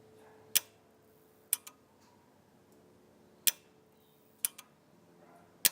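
Samsung PS42C91HDX 42-inch plasma TV clicking repeatedly without switching on: five sharp clicks about a second apart, some of them doubled. The uploader traced the clicking to a dry solder joint on the power MOSFETs of the power supply board.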